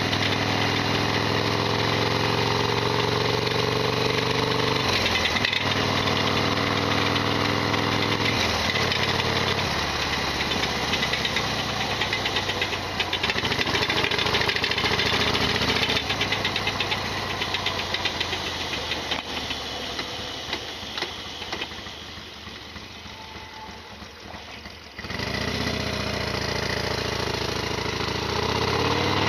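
Modified Harley-Davidson Sportster XL1200R's air-cooled 1200 cc V-twin running under way, the pitch climbing and breaking twice in the first several seconds as it shifts up. Past the halfway point the engine note fades away for several seconds, then comes back abruptly with the throttle. Through it runs the loud rattling mechanical noise that the owner calls the bike's usual racket.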